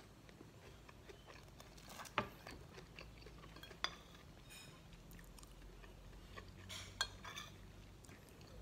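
Metal spoon and fork clinking and scraping on a ceramic plate while cutting a chicken nugget. Three sharp clinks stand out, about two, four and seven seconds in.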